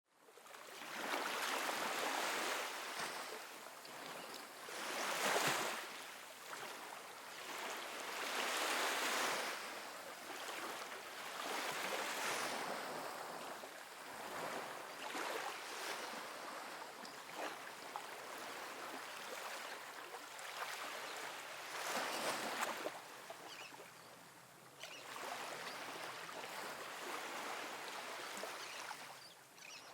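Small ocean waves washing onto a sandy beach, a steady hiss of surf that swells with each breaking wave, every few seconds, and then eases off.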